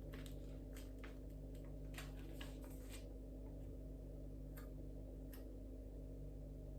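Light clicks and taps of small hard plastic Lego Technic pieces being handled: a quick irregular run of them over the first three seconds, then two single clicks. A steady low hum sits underneath.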